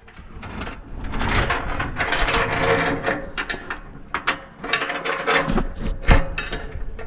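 Irregular mechanical clicking and rattling, dense and continuous, with sharper knocks near the end.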